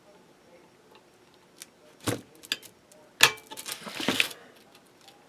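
Metal tools clicking and rattling against a steel E-clip as it is pressed onto the shaft of a Maytag dryer tensioner pulley, with a few separate clicks, one sharp click about three seconds in, then a short run of clicks and rattles.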